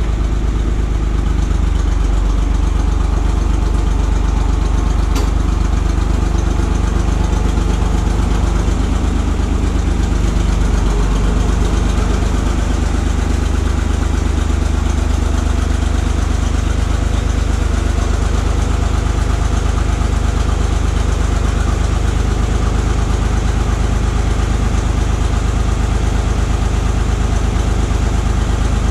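Allis-Chalmers 5050 diesel tractor engine running steadily at low throttle as the tractor backs up slowly.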